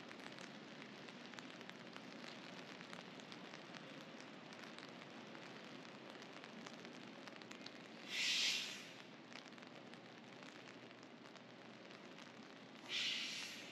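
Steady light rain falling on wet city pavement, with fine scattered drop ticks. Two short, loud hisses cut in, about eight seconds in and again near the end.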